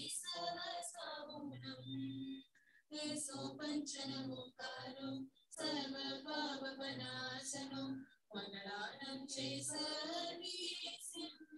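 A solo voice singing an invocation prayer song in long, held, wavering phrases with short breaths between them.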